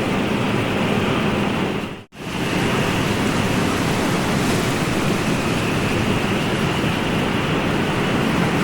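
Steady rushing noise of ocean surf. About two seconds in it drops away to silence for a moment, then comes straight back at the same level.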